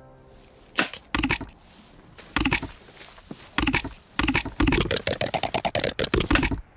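A run of short knocks and clatters, a few spread out at first, then coming quickly, several a second, in the last two seconds.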